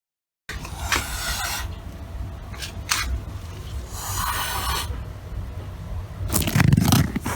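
Scraping and rustling over a steady low rumble of distant traffic, with a louder scuffling knock near the end.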